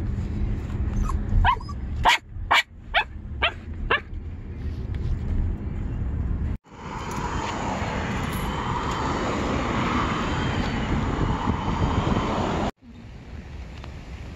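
A dog barking about six times in quick succession inside a car, over the car's low road rumble. After a few seconds this gives way to a steady rushing noise.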